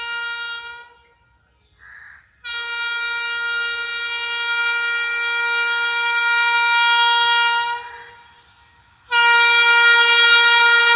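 Locomotive horn of an unseen train sounding long steady blasts on one pitch. A blast cuts off about a second in and a short toot follows at about two seconds. A long blast of about five seconds comes next, and another starts about nine seconds in and is still sounding at the end.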